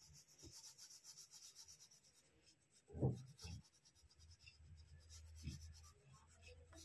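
Faint scratchy rubbing of purple colour being scribbled back and forth on a workbook page in quick strokes. A brief low sound breaks in about three seconds in.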